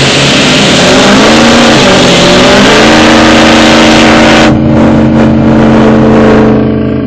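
Pickup truck engine revving hard under load while its tires spin in loose dirt, pulling against another truck on a chain, with the hiss of dirt and gravel spraying. About four and a half seconds in the spray dies away, leaving the engine held at steady high revs, and it eases off at the very end.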